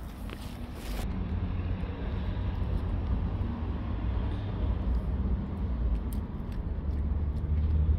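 Low, steady rumble of road traffic that grows louder near the end, with faint scattered clicks of a cat crunching dry kibble.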